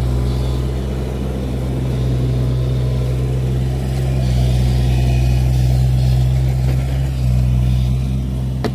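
Mini excavator's diesel engine running steadily under light digging load, a constant low hum.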